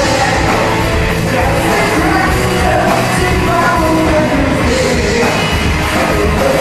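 A live band playing a song while a lead singer sings into a microphone.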